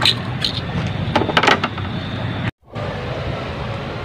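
Light clicks and taps of hands handling the carburetor fittings and wiring on a scooter, over a steady low rumble. The sound drops out briefly about two and a half seconds in.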